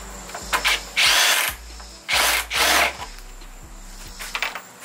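Cordless drill spinning in three short bursts as it backs out the headlight's mounting bolts, with a few light clicks between.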